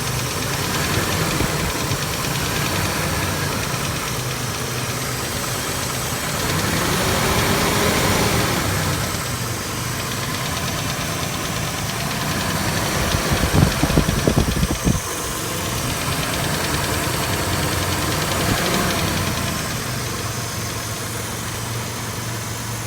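2003 Mitsubishi Montero Sport running steadily, swelling twice, with a cluster of sharp knocks about two-thirds of the way through.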